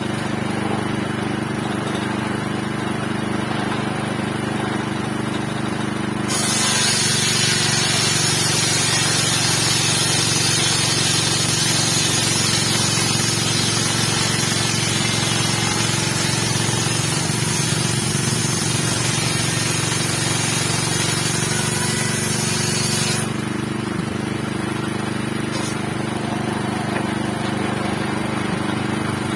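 A 7.5 HP engine drives a large circular saw, running steadily. About six seconds in, the blade cuts into wood with a loud, harsh cutting noise and the engine note drops slightly under the load; the cut lasts about seventeen seconds, ending abruptly, and the saw runs on free.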